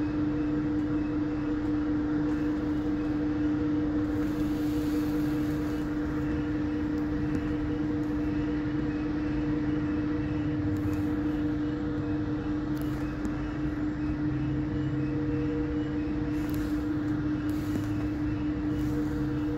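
Aerial tramway machinery running: a steady hum with a constant low tone over a rumble as the cables carry the cabins along the line.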